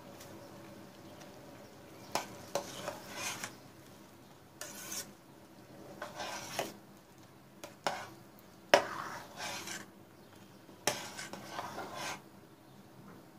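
A spoon stirring cherry jam in a stainless steel pot: several scraping passes through the fruit and syrup, with sharp clinks where the spoon knocks the pot, the loudest a little past the middle.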